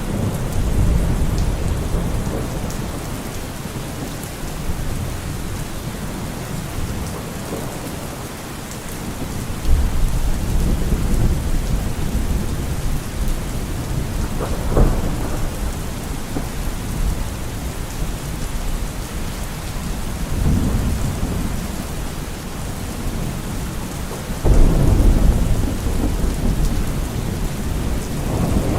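Steady rain falling, with deep rolls of thunder; the rumbles swell and fade, starting suddenly about ten seconds in and again a few seconds before the end.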